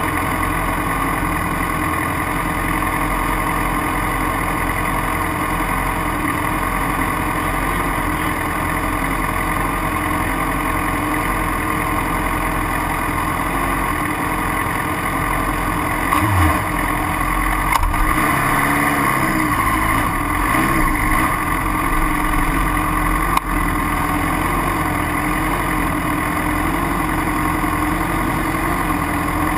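Sport motorcycle engine idling steadily. About two-thirds of the way through, the revs rise and fall for a few seconds, and there is a short sharp knock just after.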